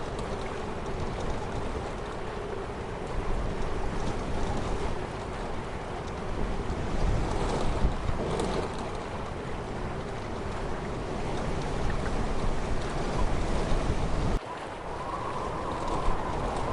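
Steady rushing of wind and flowing water, heavy in the low end. It breaks off abruptly about fourteen seconds in, and a similar rush resumes with a faint steady tone in it.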